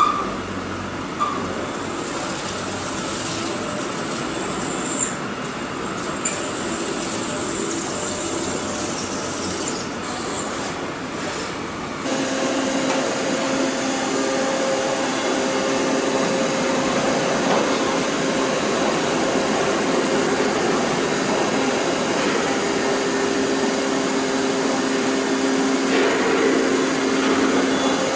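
Hwacheon L1 2500 vertical machining center cutting aluminium 6061 under flood coolant. First comes canned-cycle drilling with a 15 mm drill, a steady hiss and hum with a few sharp clicks. About 12 s in it changes to contour milling with a 4 mm flat endmill at 8,000 rpm, a louder steady hum with a held tone.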